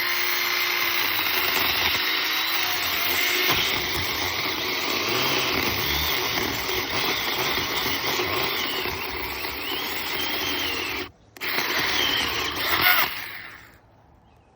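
Small chainsaw running steadily as it cuts a tree branch. It stops for a moment about eleven seconds in, starts again, then winds down near the end.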